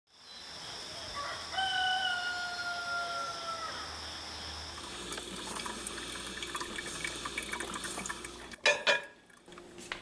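A rooster crows once, one long call that falls slightly in pitch. Then a drip coffee maker brews with a run of small ticks and spatters, and two loud short sputters come near the end.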